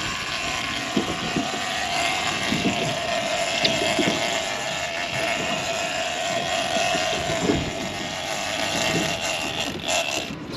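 Motorboat engine running steadily, with wind on the microphone and waves slapping the hull now and then.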